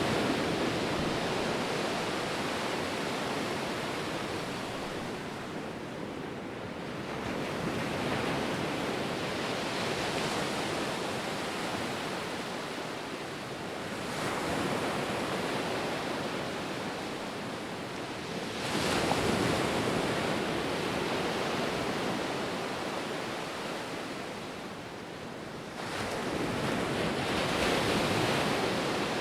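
Ocean surf: waves breaking and washing up in a steady hiss that swells and ebbs, with a fresh surge roughly every five to seven seconds, the strongest about two-thirds of the way through.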